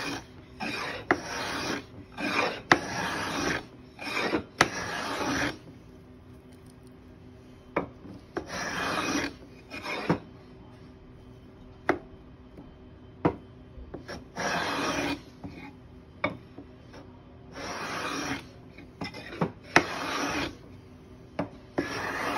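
Hand plane cutting shavings from a board of East Indian rosewood: a quick run of about seven short strokes in the first five seconds, then a single stroke every two to five seconds. Sharp knocks come between the strokes.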